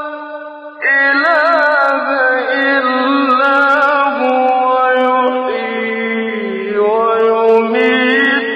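A male voice reciting the Quran in the melodic, chanted mujawwad style. A long held note fades out, then a new phrase begins about a second in, with wavering ornaments and long drawn-out vowels.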